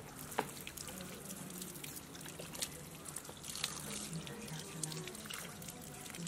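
Water running from a hose pipe and splashing onto raw pig intestines on a stone slab as they are rinsed by hand, a steady wash of water with small scattered splashes.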